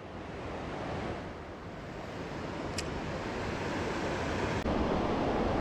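Steady rushing of a fast-flowing river, an even hiss of moving water that grows slightly louder.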